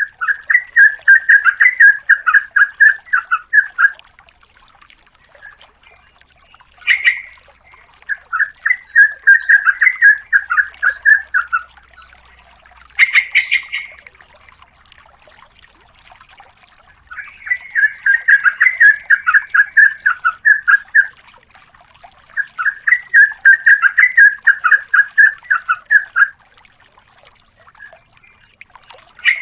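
Yellow-vented bulbul (trucukan) singing in long runs of rapid, repeated bubbling notes, each run lasting about three to four seconds, with single short, sharper calls in the pauses between runs.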